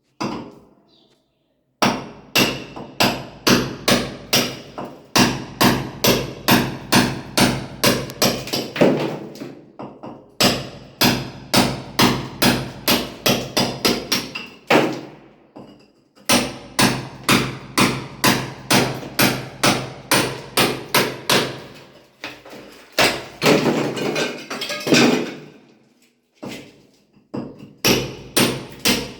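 Hammer blows from a mason breaking a wall: runs of sharp strikes, about three a second, broken by short pauses.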